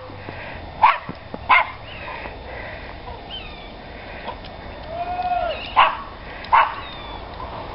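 Dog barking: four short, sharp barks in two pairs, the second pair about five seconds after the first, with a fainter rising and falling call in between.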